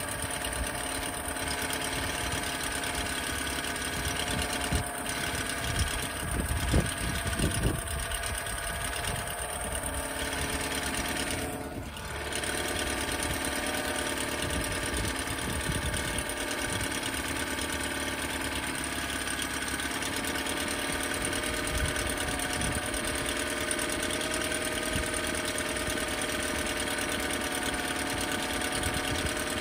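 2006 Honda 8 hp four-stroke outboard, cowl off and freshly serviced, idling steadily in a water test tank. About twelve seconds in, its speed dips briefly, then settles back to a steady idle.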